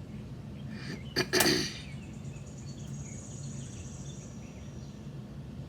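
A sharp click followed by a brief rustle about a second in, as small items are handled, over a steady low hum. A faint high trill runs from about three to five seconds in.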